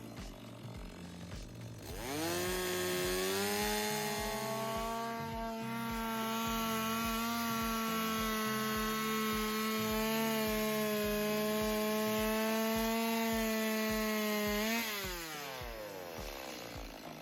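Stihl two-stroke chainsaw revving up about two seconds in and holding a steady high-speed whine for about thirteen seconds, then dropping back to idle near the end.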